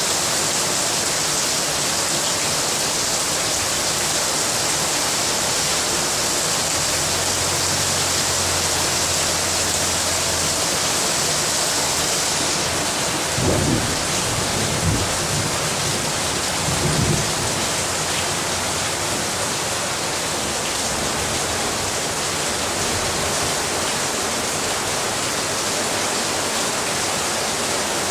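Heavy rain pouring steadily, a dense even hiss. About halfway through come a few short low thumps.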